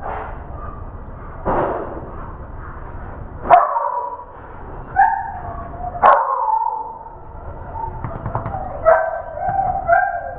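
Dog barking: several loud, sharp barks and higher yips, starting about three and a half seconds in and coming back a few more times.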